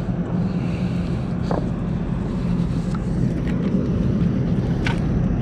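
A steady, low mechanical hum, with a couple of faint clicks.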